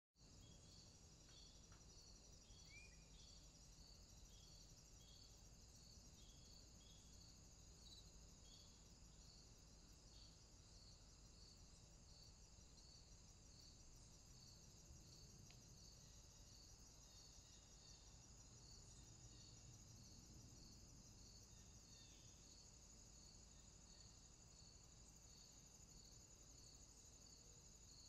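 Faint chorus of crickets: a steady high trill with a regular chirp repeating a little under twice a second. A single short bird chirp comes in about three seconds in.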